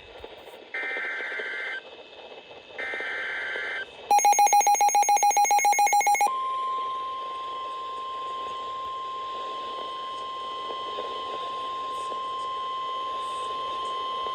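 Emergency Alert System tones: two short SAME digital data bursts of about a second each, with about a second between them, then about two seconds of a rapidly pulsing attention tone, then a steady warning alarm tone, the single-pitch 1050 Hz NOAA Weather Radio type, held for about eight seconds. Together they signal the start of a new warning.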